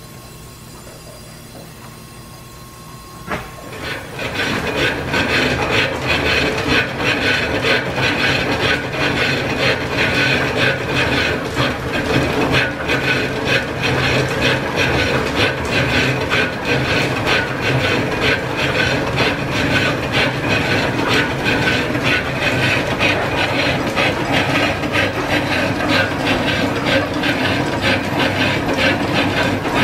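Lathe starting with a knock about three seconds in, then running steadily with a fast, even clatter as it turns a cast-iron casting being roughed out into piston ring blanks.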